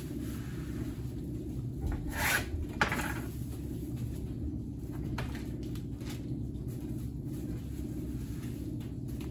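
Parcel-packing handling noises: two short rustling, scraping sounds about two to three seconds in, then a few light clicks, over a steady low hum.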